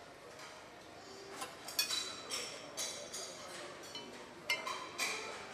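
Metal cutlery clinking against ceramic mugs and a plate: about half a dozen irregular, sharp clinks, each with a brief high ring.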